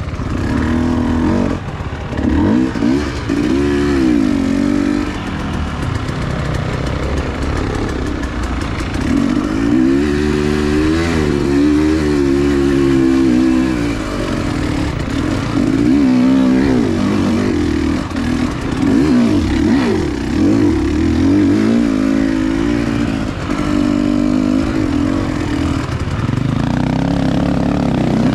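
Dirt bike engine running and being revved up and down repeatedly, its pitch rising and falling as the throttle is worked.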